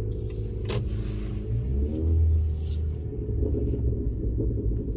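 A 2020 Honda Accord's turbocharged four-cylinder running through a Borla S-Type aftermarket exhaust, heard as a steady low drone inside the cabin while cruising. The pitch rises slightly and the drone grows louder about two seconds in, under a light throttle increase.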